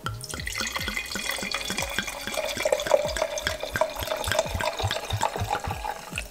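Red wine glugging out of a glass bottle into a large wine glass: a steady splashing pour broken by repeated glugs as the glass fills.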